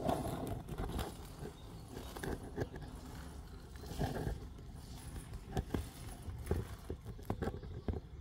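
Handling noise from a phone held in the hand: irregular rubs, scrapes and small knocks of skin and fingers against the phone near its microphone, over a low steady rumble.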